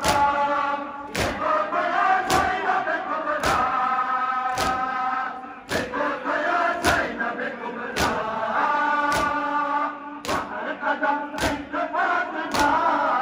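A crowd of Shia mourners chanting a noha in unison, with sharp, synchronized strikes about once a second, the rhythmic chest-beating of matam.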